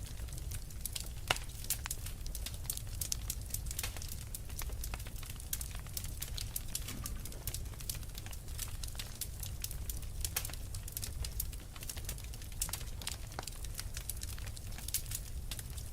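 Fireplace fire crackling: irregular sharp pops and snaps several times a second over a low steady rumble.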